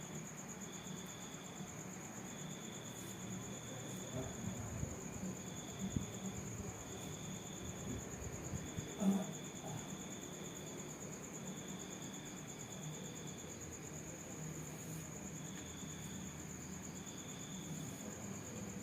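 Insects chirping: one continuous high, pulsing trill, and a lower chirp coming in short bursts about once a second. Soft low rubbing and a few light knocks come through in the middle, the loudest about nine seconds in.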